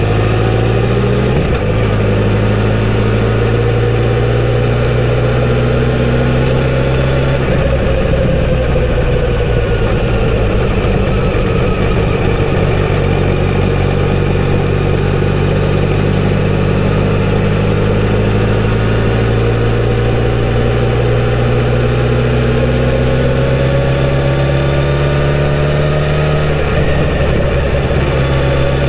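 Kawasaki Z900RS's inline-four running through its stock exhaust while cruising. The engine note holds fairly steady, shifting in pitch about a second in, dipping and recovering a few seconds later, and climbing slowly toward the end as the throttle is opened.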